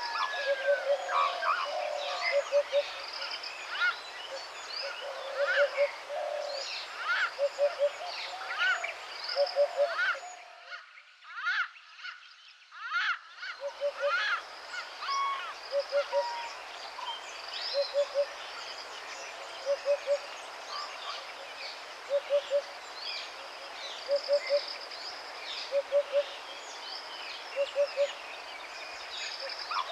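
Chorus of wild birds, many short chirps and whistles, over a low three-note call repeated about once a second. The sound thins out for about three seconds near the middle.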